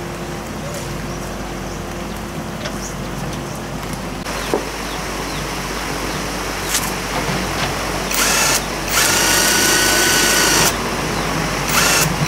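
Cordless drill running in bursts at a motorbike's front wheel hub: a short burst about eight seconds in, a longer run of nearly two seconds, then two brief bursts at the end. A couple of sharp tool clicks come before it.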